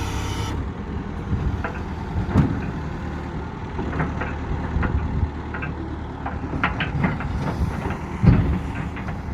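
Backhoe loader's diesel engine running steadily, with short knocks and clanks throughout; the loudest come about two and a half seconds and about eight seconds in.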